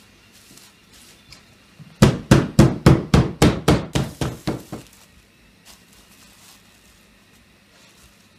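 Metal meat mallet pounding chicken breast fillets through plastic wrap on a wooden board to thin them: a quick run of about fourteen blows, about five a second, starting about two seconds in and weakening toward the end.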